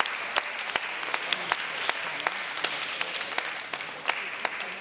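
A small group of people applauding by hand, with single claps standing out.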